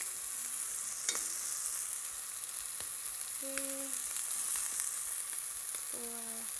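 Scallops searing in oil in a hot pan, a steady sizzle, with a couple of light clicks from metal tongs.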